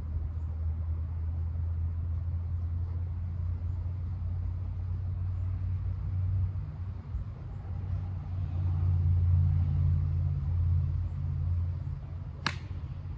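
Steady low outdoor rumble throughout. About half a second before the end comes a single sharp crack, typical of a golf club striking a ball.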